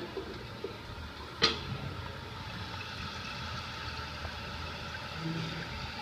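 Toto Drake toilet tank refilling: water hissing steadily through the fill valve. A single sharp knock comes about a second and a half in.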